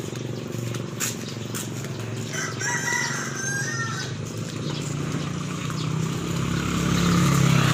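A rooster crows once, about two and a half seconds in, a pitched call lasting over a second. A low engine hum runs underneath and grows louder near the end, as a motor vehicle draws near.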